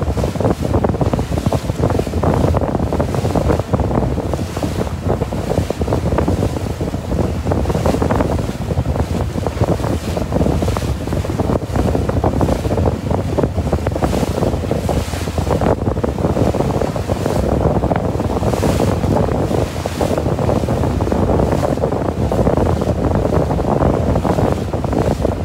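Steady wind buffeting the microphone over the rush of churning wake water behind a fast-moving small boat.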